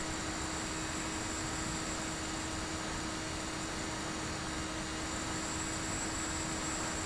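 Bixler 3 electric RC plane in steady cruise, recorded by its onboard camera: a constant rush of wind noise with the steady hum of the brushless pusher motor and propeller and a thin high whine over it.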